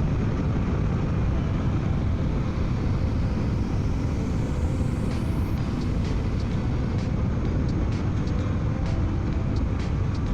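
Suzuki V-Strom 800DE parallel-twin motorcycle riding at road speed, heard from a helmet microphone as a steady, dense wind rush over the engine's running. A faint high whine rises and cuts off about halfway, and light ticks come scattered through the second half.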